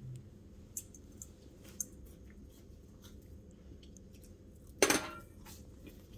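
Cutlery and dishes clinking during a meal: a few light ticks in the first two seconds and a louder clatter about five seconds in, over a low steady room hum.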